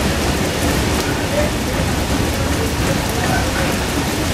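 Steady heavy rush of falling water: monsoon rain and waterfall spray pouring onto wet paving, with a low rumble underneath from a freight train rolling past.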